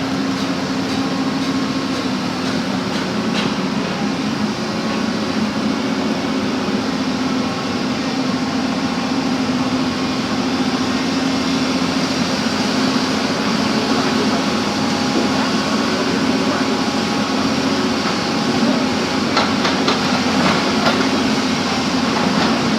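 Backhoe engine running steadily at a constant speed, with a few knocks near the end.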